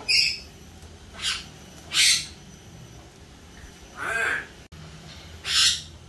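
Sulphur-crested cockatoo giving five short, harsh squawks, spaced about a second or so apart.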